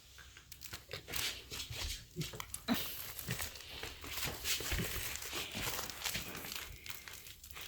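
Crinkly toy rustling and crackling unevenly as a pet plays with it.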